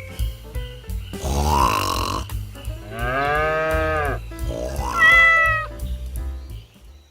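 Three drawn-out animal-like cries that rise and fall in pitch, the last one higher and shorter, over background music with a steady low bass.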